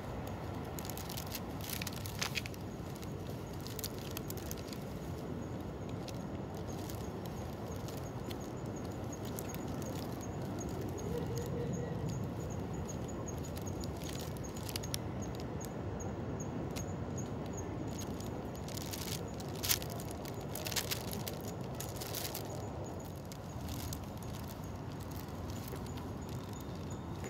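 Quiet outdoor background noise: a steady low hum with a few light taps, about two seconds in and again around twenty seconds in.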